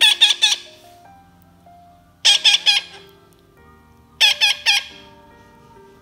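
Baby parrot chicks squawking in three bursts of rapid, harsh calls about two seconds apart, each burst of three or four calls: food-begging calls while being hand-fed banana. Faint background music plays underneath.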